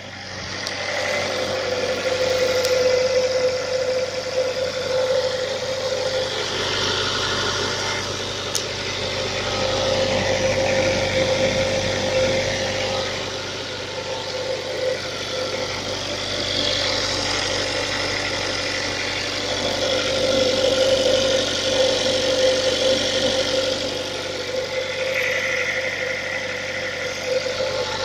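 Kia Sportage engine running steadily at idle with a knock in it.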